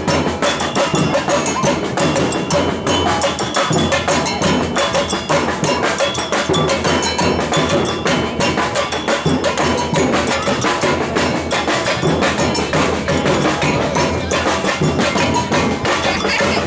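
Samba percussion band playing drums live in a steady, unbroken rhythm.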